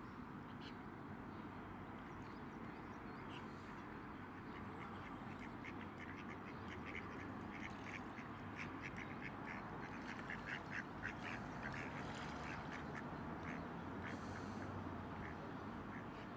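Waterfowl calling: a quick run of short, repeated calls that builds a few seconds in, comes thickest through the middle and thins out near the end, over steady outdoor background noise.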